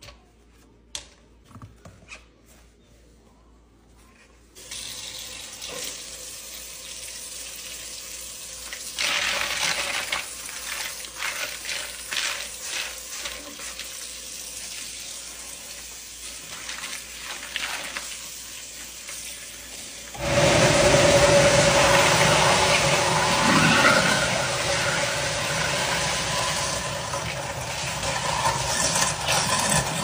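A few light taps, then tap water running into a kitchen sink over ice cubes from about four seconds in. About two-thirds of the way through, a garbage disposal switches on with a sudden jump in loudness, its motor running with a steady hum as it grinds ice, lime wedges and soapy water.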